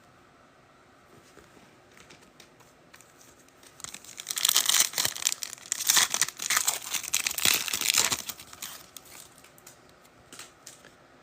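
A foil trading-card pack being torn open and its wrapper crinkled. The crackling starts about four seconds in, comes in uneven surges for around four seconds, then dies away, with a few light handling ticks before and after.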